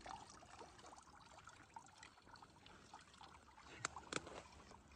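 Near silence with faint trickling water, broken by two short light clicks about four seconds in.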